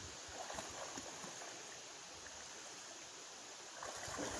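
Faint, steady sound of river water, then near the end a Rottweiler starts splashing through the shallows.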